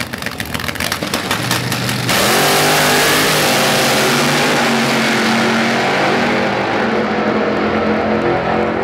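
Two drag cars' engines, one of them a supercharged orange Ford Pop-bodied racer, running with a choppy, pulsing note on the start line. About two seconds in they launch at full throttle: a sudden loud blast that climbs in pitch and grows duller as the cars pull away down the track.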